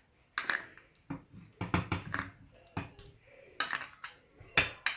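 A spoon knocking and scraping against a cooking pot in a run of short, uneven taps, as spoonfuls of honey go into melted, bubbling camel fat.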